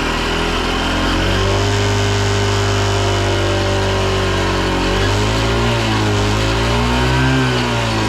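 Honda Super Cub 50 Pro's small single-cylinder four-stroke engine running. The revs rise about a second in and hold steady, then drop and pick up again twice near the end, with no abnormal noises.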